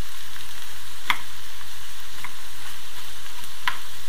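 Chopped bell peppers, carrot and onion sizzling steadily in a frying pan as they stew in the peppers' own water, stirred with a plastic spatula. Three short sharp scrapes of the spatula against the pan about a second apart.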